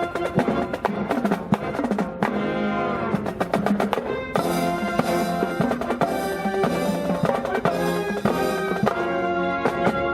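Fire department band playing brass-led music over a drum kit with snare and bass drum; a bending brass phrase about two seconds in, and cymbals joining from about four seconds on.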